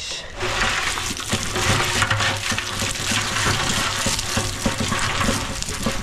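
Rubble and broken stone pouring out of a tipped cement mixer drum onto the ground: a continuous gravelly rush full of small clicks and rattles, over a steady low hum.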